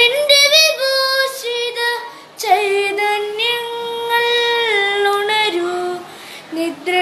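Boy singing a Malayalam light-music song into a microphone, in slow melodic phrases with a long held note in the middle.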